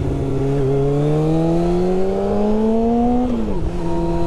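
1996 Yamaha YZF600's inline-four engine pulling under throttle, its note climbing steadily for a few seconds. About three and a half seconds in, the pitch falls sharply and then holds at a lower, steady note. A steady rush of wind runs underneath.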